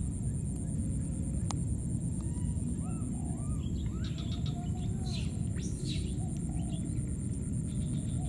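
Baby monkeys giving many short coos that rise and fall, over a steady low rumble and a steady high whine.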